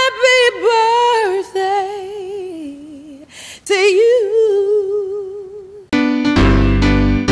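A solo high voice sings long wordless held notes with vibrato, with short breaths between them. About six seconds in, full piano or electric-piano music with a heavy bass enters.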